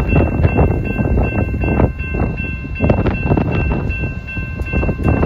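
Railroad grade-crossing warning bell ringing for an approaching freight train: steady high tones with repeated strikes, over a heavy low rumble.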